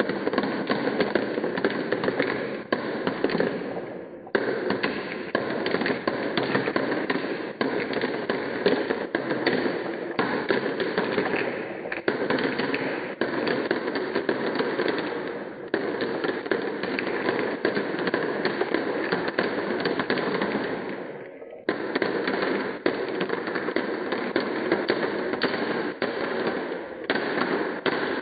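A steady stream of marbles rolling down a wooden slope and dropping into a plastic toy dump truck's bed, making a dense, continuous clatter of clicks and clacks. It breaks off briefly about four, fifteen and twenty-one seconds in.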